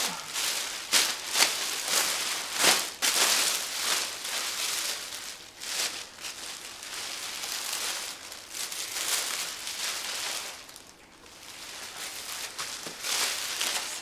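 Irregular rustling and crinkling from a roo'd sheep fleece being handled, in uneven bursts.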